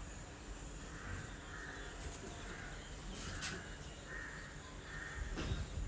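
Crows cawing in a series of short, harsh calls over quiet rural background.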